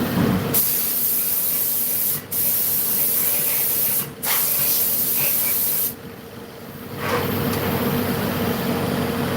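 Loud hissing spray over the steady hum of a vertical machining centre (VMC). The spray starts about half a second in, cuts out briefly twice, and stops about six seconds in; a softer hiss comes back about a second later.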